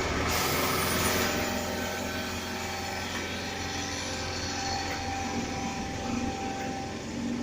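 Train passing close by: a loud rush of wheel and running noise that starts suddenly and carries on steadily, with a faint steady whine in the middle.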